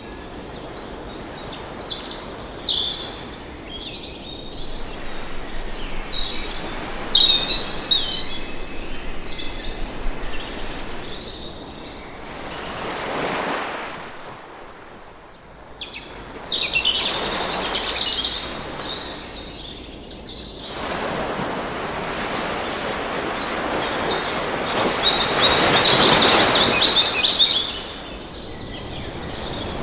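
Birds chirping and calling over the hiss of sea waves washing in. The wash swells and fades twice, about halfway through and again near the end.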